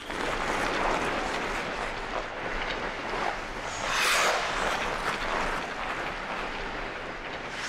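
A team of ice hockey skates carving and scraping across the ice in hard sprints, as a rushing hiss. About four seconds in it grows louder as the players dig into hard stops and spray up ice.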